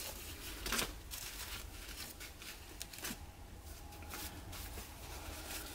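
Faint rustling and crinkling of a plastic carrier bag and the diapers being handled out of it, with a few sharper crinkles.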